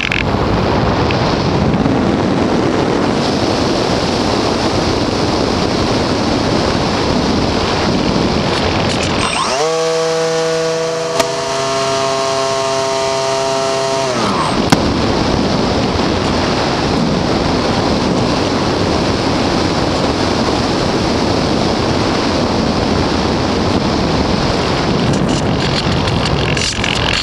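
Wind rushing hard over the microphone of a camera riding on a Multiplex Easy Glider RC glider in flight. About halfway through, the glider's electric motor whines up to speed, runs steadily for about four seconds, then winds down.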